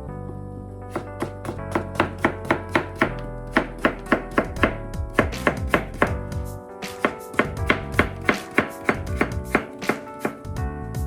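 Kitchen knife chopping vegetables on a cutting board, quick, even strokes at about three or four a second starting about a second in, over background music.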